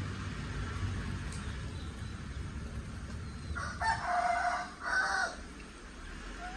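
Rooster crowing once, a two-part crow starting about three and a half seconds in and lasting under two seconds, over a low rumble that drops away as the crow begins.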